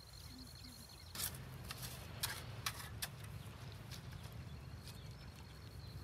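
Metal shovel blade chopping into wet mud and grass at a pond's edge: a run of sharp strikes starting about a second in, a few more near the end, over a low steady rumble.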